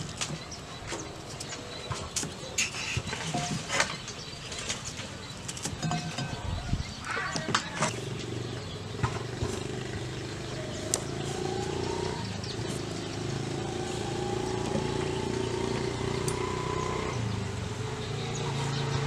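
Scattered light taps and clicks of hands and utensils on a wooden chopping block. From about eight seconds in, a small engine runs in the background, a vehicle such as a motorbike, its pitch rising a few times.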